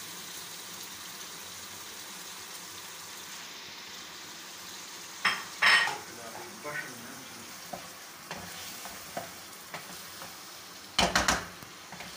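Chicken pieces and chopped tomatoes sizzling steadily in a non-stick wok. A wooden spatula stirs and scrapes against the pan, with two louder clusters of knocks, about five seconds in and again near the end.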